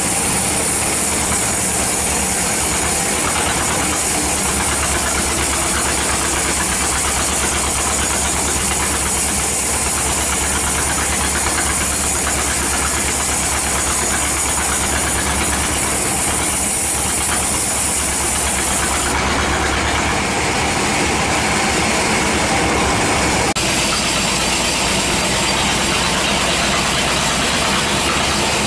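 Band sawmill running, its blade cutting through teak: a steady, loud machine noise with a low hum and a high hiss. The hum and hiss drop away about two-thirds of the way through, and the sound changes abruptly shortly after.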